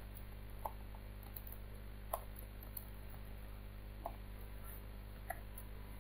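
About five scattered computer keyboard keystrokes, single sharp clicks a second or so apart, over a steady low electrical hum.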